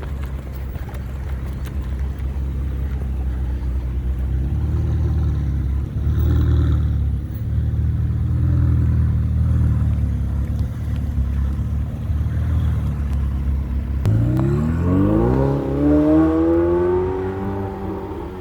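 Ferrari 488 Pista's twin-turbo V8 rumbling steadily at low revs, then, with about four seconds left, revving up sharply in a rising sweep that levels off at the end.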